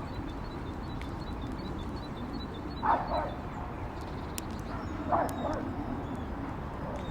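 A dog barks twice, two short barks about two seconds apart, over a steady low background rumble.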